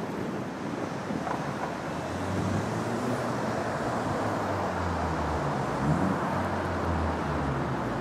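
Downtown street ambience: a steady traffic hum, joined about two seconds in by the low rumble of a nearby vehicle engine running.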